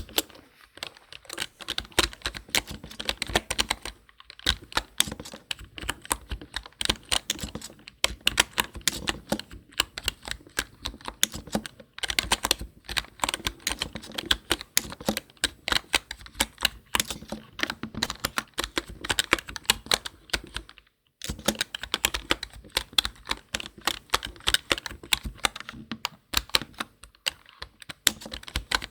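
Continuous fast typing on a computer keyboard: dense, rapid key clicks with a few short breaks, one clear pause about two-thirds of the way through.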